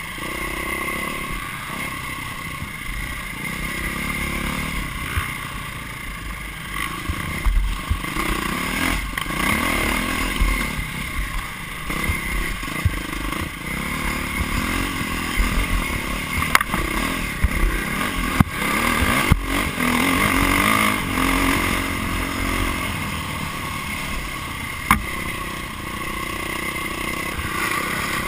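Off-road dirt bike engine, heard up close from the bike it is mounted on, revving up and down as it is ridden along a rough trail, with sharp knocks and clatter from the bike over bumps.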